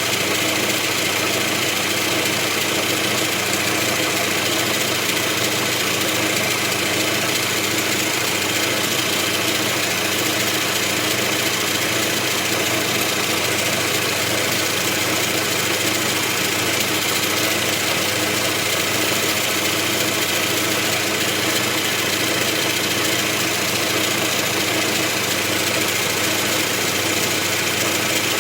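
1944 Logan 210 metal lathe running steadily under its flat-belt drive, a constant mechanical noise with no change in speed.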